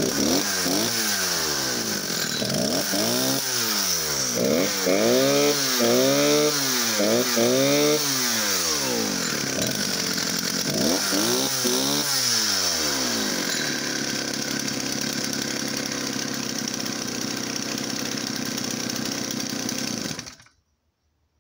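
Stihl 07 chainsaw's 75cc two-stroke engine, fitted with a welded-on Husqvarna-style exhaust, being blipped again and again, revving up and dropping back about once a second. After a couple more blips it idles steadily, then cuts off suddenly near the end. The engine is healthy and running well.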